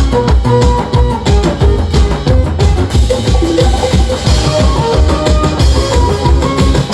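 Loud upbeat music with a steady, fast drum beat under a melody of held notes.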